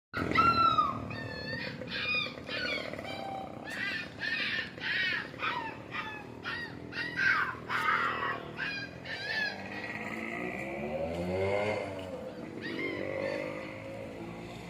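A bird calling over and over, short harsh calls about one or two a second, for the first ten seconds. After that a motor vehicle's engine rises and falls as it passes.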